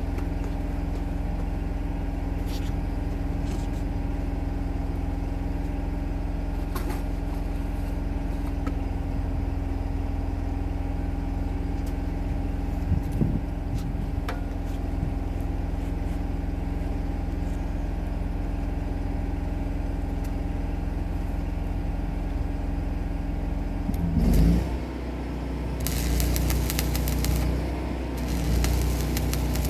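Engine-driven welding machine running steadily. About 24 s in its engine note shifts, and from about 26 s a crackling hiss comes in two stretches: an arc being struck for stick welding.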